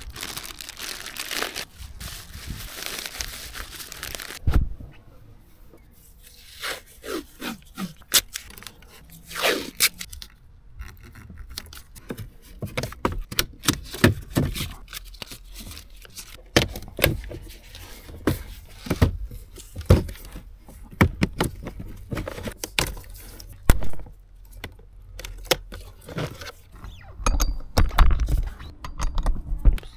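Plastic parts bags crinkling, then a long run of sharp clicks and knocks as a car's interior dashboard trim is handled and worked loose, and near the end a cordless drill-driver running in short spurts.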